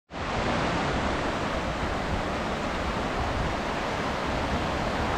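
Baring Falls rushing: a steady, unbroken roar of falling water that starts abruptly at a cut.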